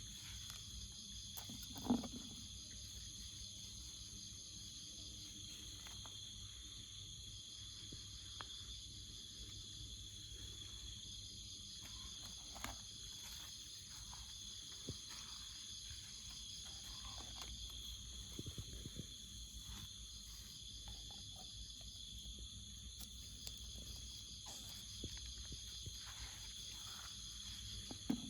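A steady chorus of jungle insects, several high-pitched drones sounding together without a break. Occasional soft rustles and clicks come through, with one louder thump about two seconds in.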